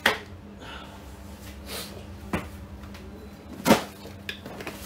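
A plastic water bottle clicking and crinkling in the hand while someone drinks from it: three sharp clicks, the loudest about three-quarters of the way through.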